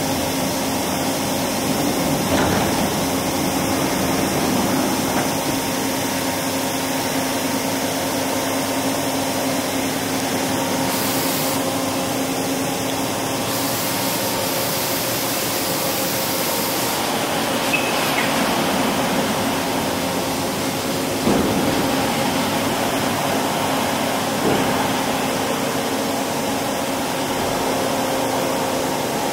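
Steady mechanical hum of running machine-shop machinery, with a few faint knocks.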